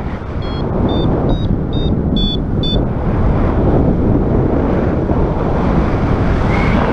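Strong wind buffeting the microphone in a loud, steady rush. Over it, a paragliding variometer gives about six short high beeps, roughly two to three a second, in the first three seconds.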